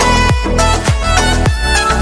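Background music with a steady beat and a sustained melody.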